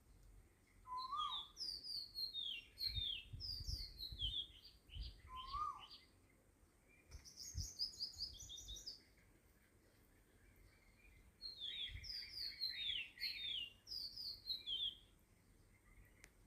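Birds chirping in several bursts of quick, high, falling notes, with a short lower call three times in the first six seconds.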